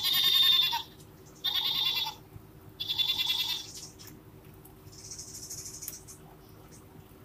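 Three goat bleats played from a children's electronic sound book's small speaker, each under a second long and about a second and a half apart.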